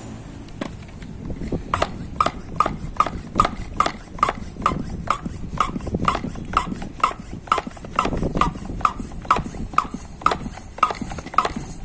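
Hand pump of a plastic Dura-X pressure sprayer being stroked, about two to three strokes a second, each stroke a short click with a brief chirp, building air pressure in the bottle.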